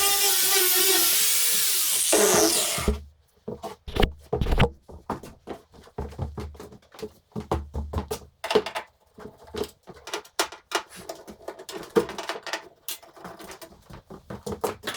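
A power tool runs with a loud high hiss and a steady whine, winds down and stops about three seconds in, followed by scattered clicks and knocks of tools and parts being handled.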